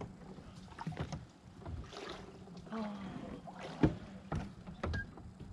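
Scattered knocks and bumps of gear against a fishing kayak's hull, about six separate hits, with a brief murmur of a voice near the middle.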